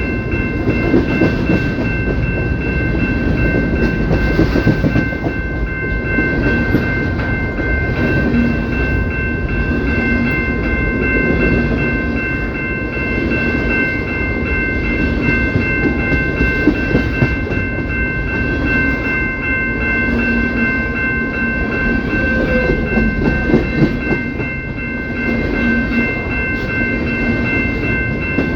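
CPKC train rolling past: a steady rumble and rattle of the wheels and cars on the rails, with a constant high-pitched ring of several steady tones.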